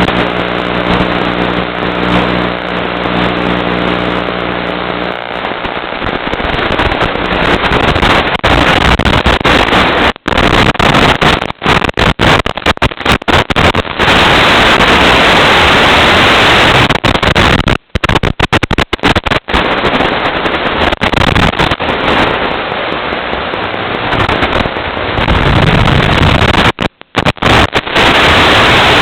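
Loud static hiss from a Nano QX quadcopter's FPV video link, broken again and again by short dropouts as the signal cuts in and out. In the first five seconds a buzzing hum with overtones sits under the hiss.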